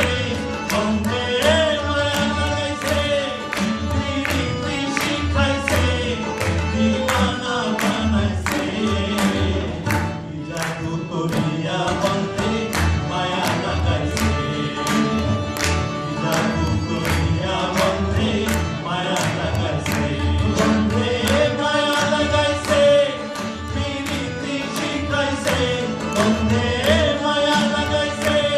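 Live Bengali folk song: a male voice singing over tabla, harmonium and acoustic guitar, the tabla strokes keeping a steady beat.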